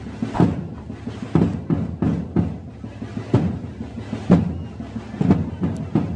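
Drums beating a steady march rhythm, with a strong accent about once a second and quicker, lighter strokes between.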